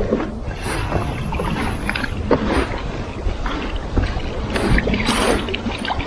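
Winged topwater crawler lure being retrieved across the water, its paddle wings splashing and gurgling at the surface in irregular plops, with wind rumbling on the microphone.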